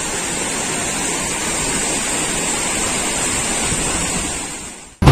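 Steady rush of falling water from a waterfall, fading out near the end.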